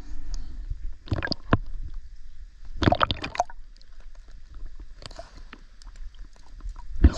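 River water splashing and gurgling at a camera held at the surface as it dips under and back up, with several short splashes, the loudest just before the end.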